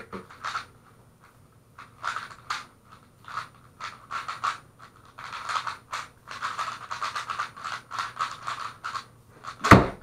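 Rubik's cube being turned fast in a speedsolve: clusters of quick plastic clicks and rattles with short pauses between them. About 9.7 s in there is a loud thump as the solve ends and the keyboard timer is stopped.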